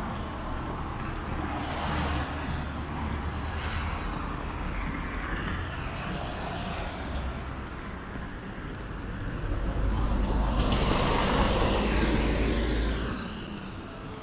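City street traffic: car engines and tyres running steadily. One vehicle grows louder and passes close from about two thirds in, then dies down near the end.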